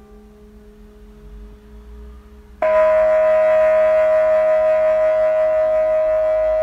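Faint quiet tones, then a loud sustained drone that starts suddenly about two and a half seconds in. The drone is one steady ringing pitch with many overtones and a slight waver, and it holds without fading.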